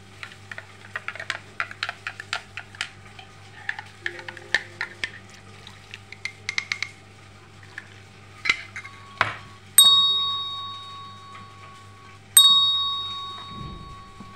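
A spoon or glass clinking over and over, then two bell-like dings about two and a half seconds apart, each ringing and fading slowly, the sound effect of an animated subscribe-button.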